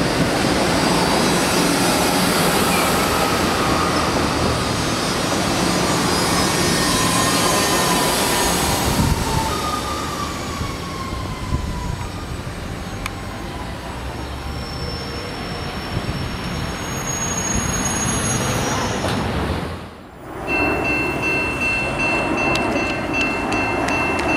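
Bombardier MR-90 electric multiple-unit train rolling past and away along the track, with faint wheel squeals gliding down in pitch; the train noise fades after about nine seconds. After a short drop-out near the end, a different steady noise with a thin high whine follows.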